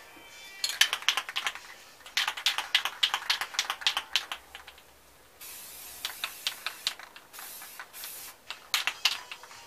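Aerosol spray paint can being shaken, its mixing ball rattling in quick runs of clicks. About halfway in, short hisses of spray start, broken up by more rattling as the can is shaken again between sprays.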